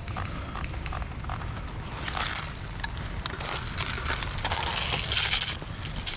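Crunching and rustling from a player moving on foot through dry brush, in two longer bursts, with a single sharp click about three seconds in.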